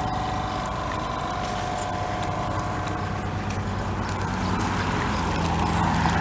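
An engine running steadily with a low hum that grows louder over the last couple of seconds, and a faint steady high whine that fades out about halfway through.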